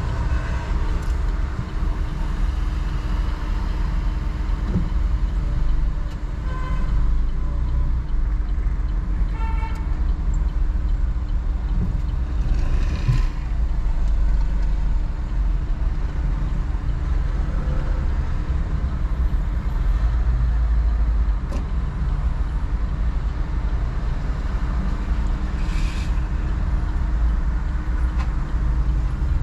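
Steady low rumble of car engine and road noise while driving slowly through town traffic, with two short car-horn toots a few seconds apart about a quarter of the way in.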